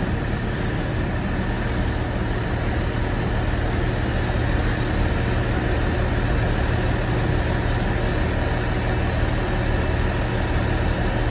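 Diesel multiple unit's underfloor engine idling steadily at a station platform.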